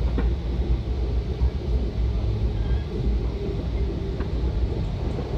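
Steady low rumble of a Metra commuter train in motion, heard from inside a passenger car.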